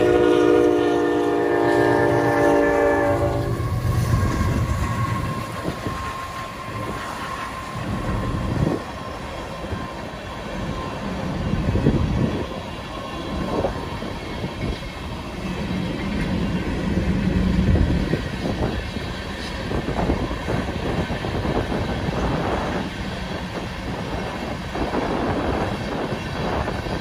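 Train horn blowing a loud held chord that stops about three and a half seconds in, followed by a freight train's cars rolling past, wheels clacking over the rail joints with a steady rumble and repeated knocks.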